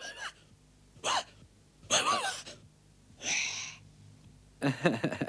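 Cartoon dog's vocalisations: four short strained sounds about a second apart, each with a sliding pitch, as the dog tries to bark with its voice magicked away.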